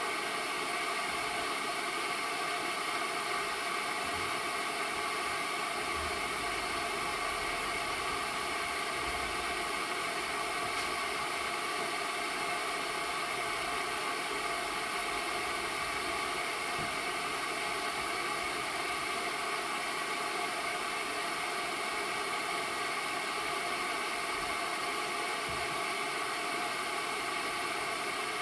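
Air hissing out of a leak in a steady, unbroken stream, without rises or falls.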